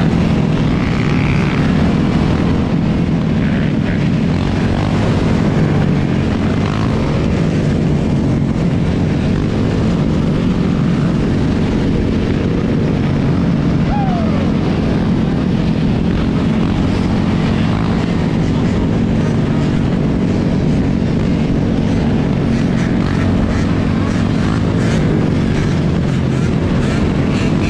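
Engines of a large pack of dirt bikes and ATVs running together on the road, a steady droning mix of many motors.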